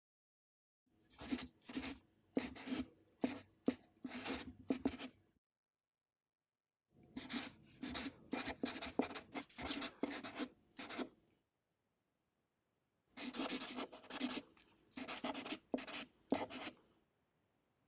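Quick scratching strokes in three bursts of several strokes each, with pauses of a second or two between the bursts.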